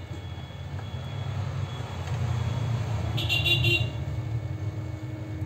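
A steady low rumble of background traffic, with a short, high, pulsing horn toot about three seconds in.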